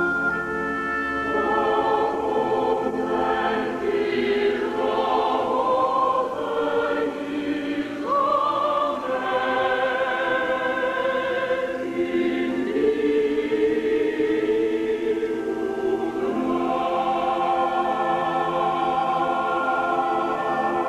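Choir singing with orchestral accompaniment, long held notes that shift in pitch.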